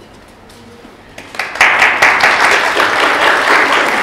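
Audience applauding, breaking out about a second and a half in and continuing steadily.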